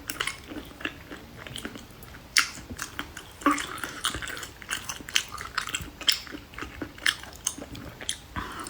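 Close-miked chewing and eating of rosé tteokbokki: irregular wet mouth clicks and smacks of chewy rice cakes.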